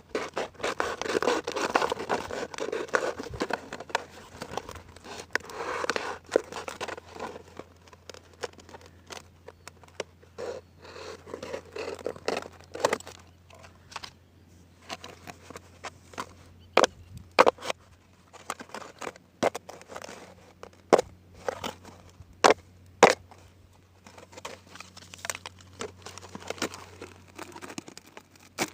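Plastic being cut and handled for a homemade fish trap: crinkling and scraping, then a run of separate sharp snaps and clicks in the second half.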